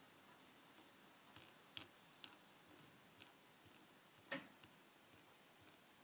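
Faint, irregular clicks and taps from a hand turning a wheel of a small micromouse robot to drive its rotary encoder, about half a dozen in all, the loudest about four seconds in.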